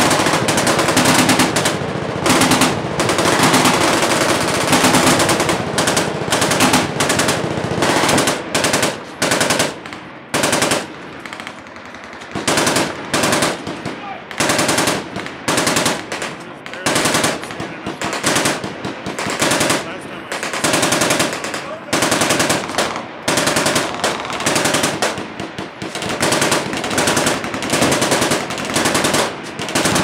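Several machine guns firing at once along a firing line: overlapping bursts of automatic fire, with a short lull about ten seconds in before the firing picks up again.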